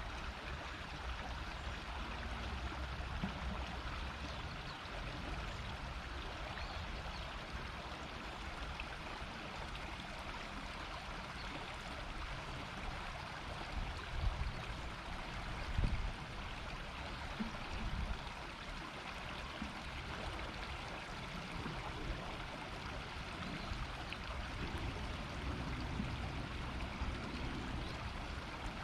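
Shallow river flowing over stones, a steady babbling murmur of water. A few brief low thumps come in the middle.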